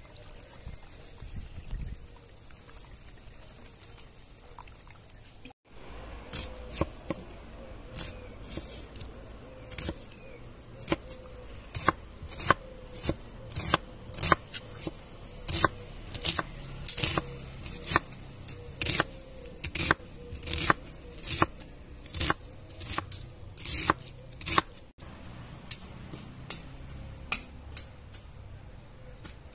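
A kitchen knife chopping an onion on a wooden cutting board: a steady run of sharp taps, about two a second. For the first few seconds a pot simmers, with an even bubbling noise.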